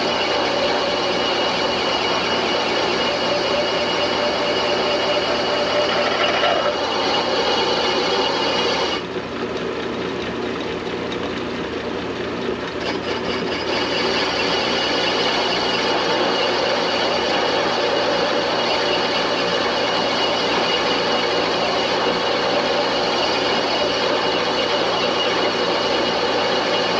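Metal lathe running steadily, its tool cutting metal on a hand-fed turning cut. About nine seconds in the higher cutting noise drops away for a few seconds while the lathe keeps running, then the cut resumes.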